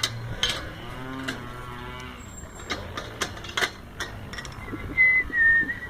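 A low, drawn-out animal call over scattered sharp clicks and knocks, with a short high whistle-like tone near the end.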